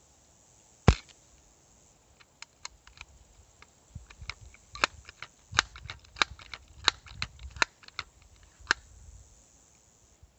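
One sharp air gun shot about a second in, followed by a string of small mechanical clicks and knocks over the next several seconds.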